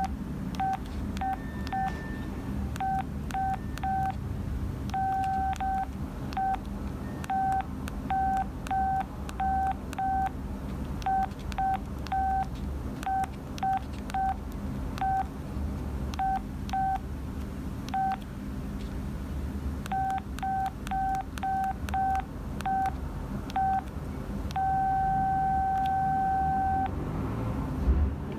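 Audiovox CDM-8200 cellphone playing a monophonic ringtone: a rhythmic run of short beeps on one pitch, ending in one long held tone near the end. Faint clicks sound throughout.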